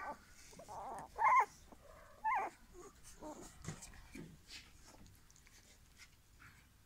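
English cocker spaniel puppies whimpering: a few short, high whines in the first couple of seconds, the loudest about a second in, then it goes quieter.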